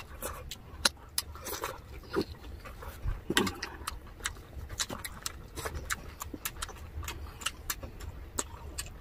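Close-up chewing of crispy fried pork: irregular sharp crunches and mouth clicks, several a second, over a faint low hum.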